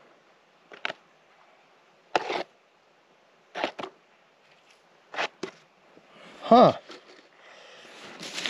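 Short, sharp scrapes and strikes of a digging tool in rocky, gravelly ground, about one a second. A brief hum from a man's voice comes about six and a half seconds in, then rustling and crinkling near the end.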